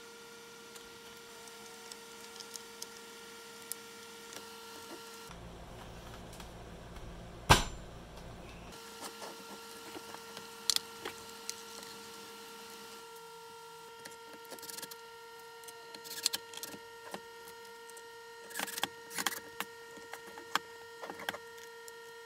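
Scattered small clicks, taps and knocks of a white plastic battery-pack case being handled and assembled, with one sharp knock about seven and a half seconds in. A faint steady high whine sits underneath, dropping out for a few seconds near the middle.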